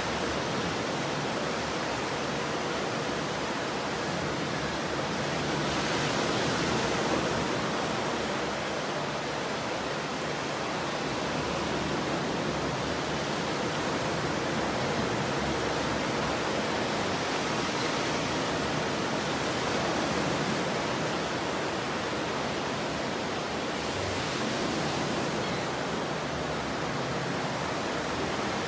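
Ocean waves breaking and washing on a beach: a steady rushing surf that swells gently three times, about 6, 18 and 24 seconds in.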